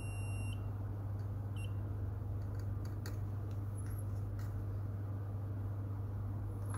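The XB-866 pocket digital multimeter's continuity buzzer beeps, a high steady tone that stops about half a second in, then gives one very short chirp just under two seconds in. The beep signals a closed, low-resistance path between the probes on the capacitor pads. A steady low hum runs underneath, with a few faint ticks.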